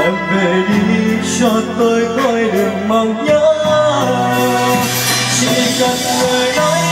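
A man singing into a microphone over an instrumental backing of long held chords and bass notes.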